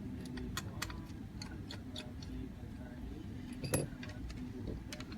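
Scattered light clicks and taps from handling a headphone's small plastic parts, with one sharper click about three quarters of the way through.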